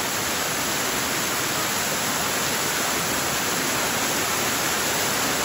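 Waterfall pouring onto rocks close by: a loud, steady rush of falling water.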